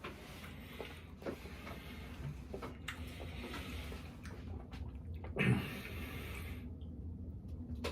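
Close-miked eating sounds: chewing and small wet mouth clicks, with a louder noisy burst lasting about a second, starting about five and a half seconds in.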